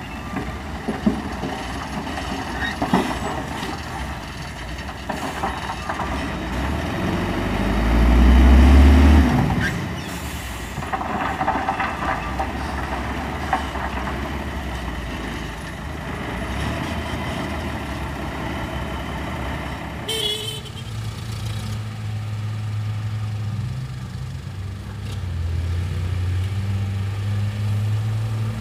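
Hino 500 FM260JD dump truck's six-cylinder diesel engine running while its raised bed tips out a load of coal, with scattered knocks and clatters and a louder low surge about eight seconds in. About twenty seconds in the sound changes abruptly to a steadier engine hum that shifts in pitch a few times.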